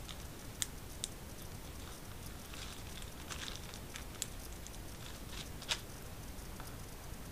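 A small resealable plastic zip bag being handled and picked open at its seal by fingers: light crinkling of the plastic with a few sharp clicks scattered through.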